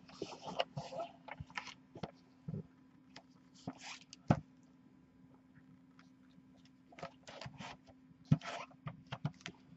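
Shrink-wrapped card boxes being handled: scattered crinkles of plastic wrap and light taps, the loudest a little over four seconds in and again about eight seconds in.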